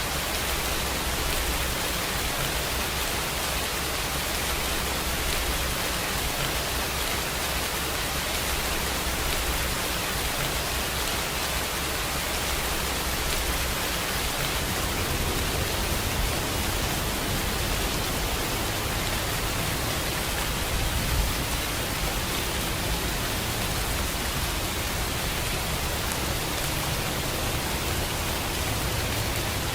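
Steady rain falling: a dense, even hiss of drops with no single drops standing out. A little more low rumble comes in about halfway through.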